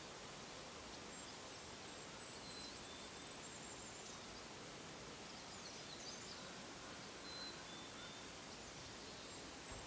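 Faint high-pitched songbird calls in a forest: thin chirps and short whistles come every second or so, over a steady, quiet outdoor hiss.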